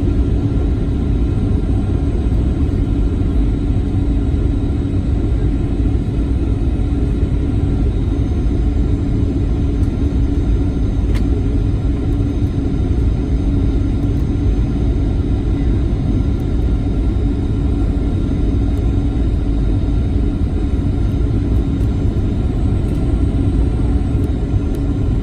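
Steady cabin drone of a Boeing 737-800 on final approach, heard from inside the cabin: a deep rumble of airflow and its CFM56 turbofan engines with a constant hum.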